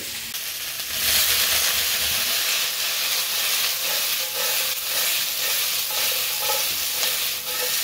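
Large chunks of carrot, celery and onion sizzling and crackling in a hot stainless steel pan as they caramelize. The sizzle grows louder about a second in as the pan is moved on the burner.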